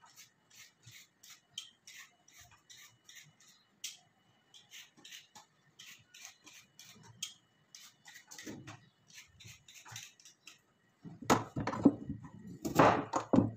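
Vegetable peeler scraping the skin off a carrot in quick, even strokes, about three a second. About eleven seconds in, it gives way to louder knife cuts through the carrot onto a cutting board.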